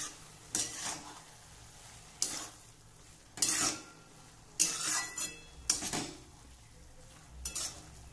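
Metal spatula scraping and stirring grated radish (mooli) in a metal kadhai, about seven scrapes at uneven intervals of roughly a second, over a faint sizzle of the radish frying.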